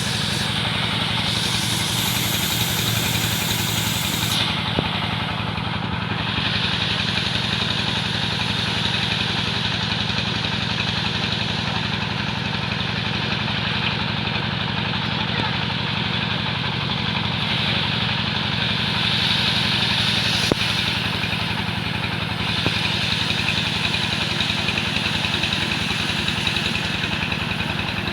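A wood saw's engine running steadily at an even speed, with a hiss in the upper range that rises and falls over time.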